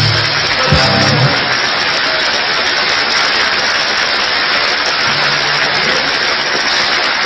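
A rock band's last notes stop about a second in, giving way to a theatre audience applauding and cheering. A low held note sounds briefly about five seconds in.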